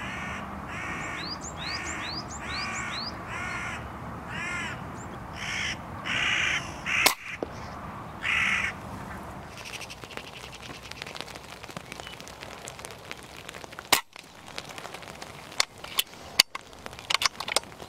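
Hooded crows cawing: a run of about eight harsh calls in the first nine seconds, followed by several sharp clicks and cracks spaced through the rest.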